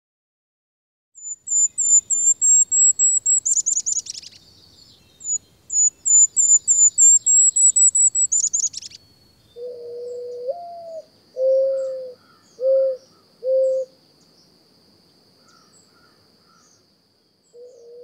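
Golden-crowned kinglet singing twice: a string of very high, thin notes, each ending in a lower, tumbling chatter. It is followed by a mourning dove cooing, a first note that slurs upward and then three lower coos, with a faint steady high insect hum underneath.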